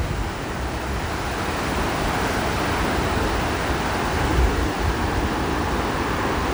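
Steady roar of Takakkaw Falls, a very tall waterfall, a continuous even rush of falling water, with some low wind buffeting on the microphone now and then.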